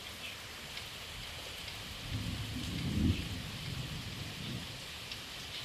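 Steady rain falling as an even hiss. A low rumble swells about two seconds in and fades out over the next couple of seconds.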